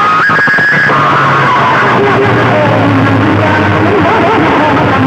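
Recorded music played very loud through a large amplified sound system. About a second in, the track changes from a guitar-led passage with a steady beat to a melody over held bass notes.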